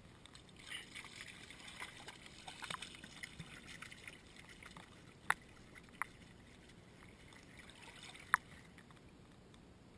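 Shallow seawater lapping and trickling over rocks close to the camera, with a spell of irregular splashing in the first few seconds as a Dalmatian wades past. Three sharp clicks stand out in the second half.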